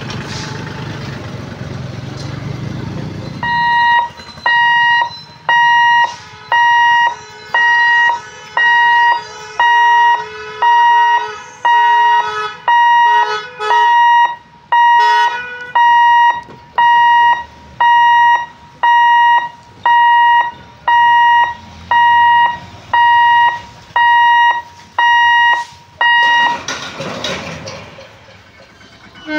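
Level-crossing warning alarm beeping a steady electronic tone, a little more than once a second, for over twenty seconds while the barrier booms lower. Before it starts, there is the rumble of road vehicle engines crossing.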